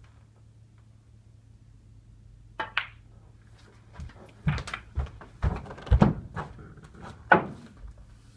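Snooker play: a sharp knock of cue and balls a little under three seconds in, then a run of dull knocks and thumps in the second half, the loudest near the end.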